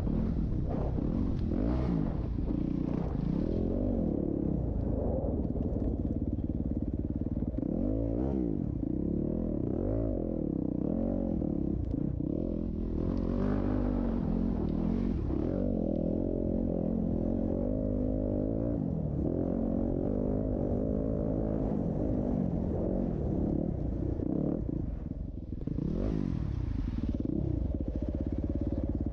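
Dirt bike engines racing, revving up and down over and over as the riders work the throttle around the track.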